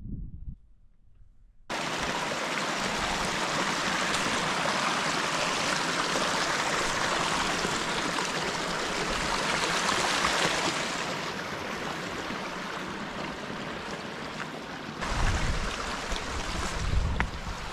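Shallow moorland stream running and splashing over granite rocks, a steady rush of water that starts suddenly after about a second and a half of near quiet. A few low thumps near the end.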